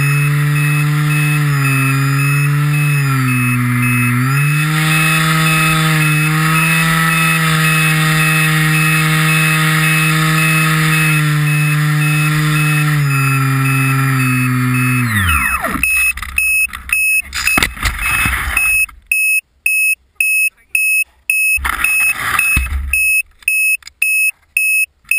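Model aircraft's motor and propeller running with a steady pitched drone that shifts up and down with the throttle, then winds down and stops about fifteen seconds in. Afterwards a high electronic beep repeats about twice a second among scattered knocks and rustles.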